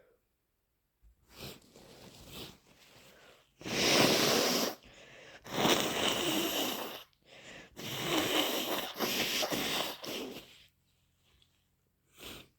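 A person blowing their nose forcefully, three long blows of about one to three seconds each, the last the longest, after some quieter breathing, with a short nasal burst near the end.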